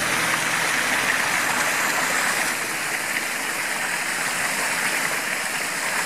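A mountain stream cascading down a small waterfall, its water rushing steadily.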